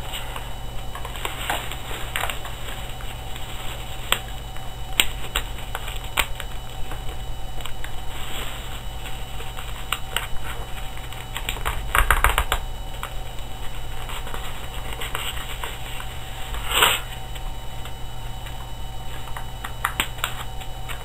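A sheet of paper being folded and creased by hand close to the microphone: irregular crinkles and clicks over a steady low hum, with a louder cluster a little past halfway and one sharp crackle about three-quarters of the way through.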